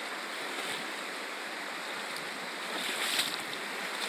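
Rapids of a shallow, rocky river rushing over stones, a steady hiss of water.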